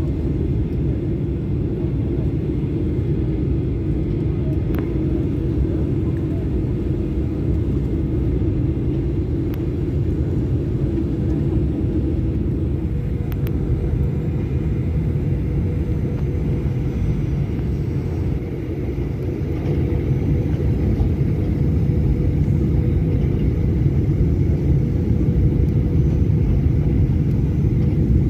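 Jet airliner cabin noise during final approach and landing, heard from a window seat beside the engine: a steady low rumble of engines and airflow. About two-thirds of the way in it grows louder as the plane touches down and rolls along the runway.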